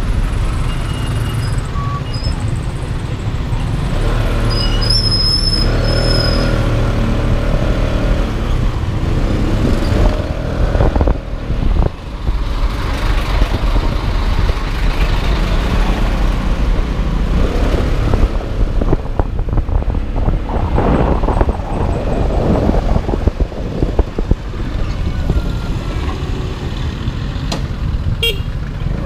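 Motor scooter riding along a road past trucks and traffic, its engine and road noise running steadily, with a vehicle horn tooting.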